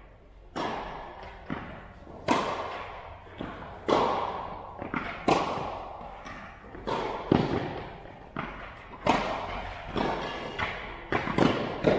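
Tennis rally: a ball struck back and forth by rackets and bouncing on the hard court, a sharp hit every second or two, each echoing in a large metal-clad indoor hall.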